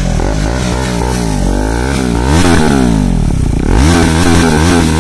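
KTM Duke 390's single-cylinder engine running through an aftermarket SC Project muffler on a bend pipe, revved twice with the pitch rising and falling back each time, giving a loud note with plenty of bass.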